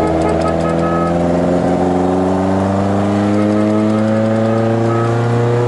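1980 VW Scirocco Mk1 GT's four-cylinder engine heard from inside the cabin, accelerating hard in one gear with its pitch rising steadily.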